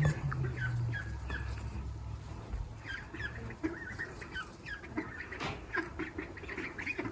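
A group of nearly four-week-old ducklings peeping: many short, quick calls, thicker from about three seconds in. A low rumble runs underneath at first and dies away about two and a half seconds in.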